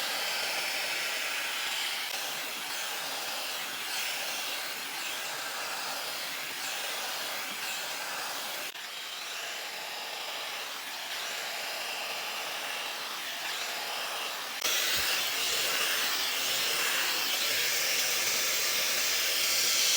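Shark hair dryer with its smoothing tool attachment blowing steadily, a continuous rush of air. It dips slightly about nine seconds in, then gets louder and brighter about fifteen seconds in.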